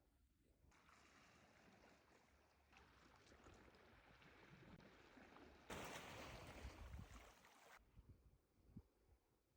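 Faint sea waves washing on a sandy beach, a soft rushing that swells, is loudest for about two seconds from around six seconds in, then drops back.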